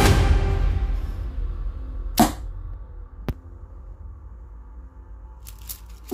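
Background music fading out. About two seconds in, a single short swish and hit as a homemade crossbow shoots a bamboo skewer into a cardboard box. A sharp click follows a second later, and faint light clicks of wooden skewers near the end.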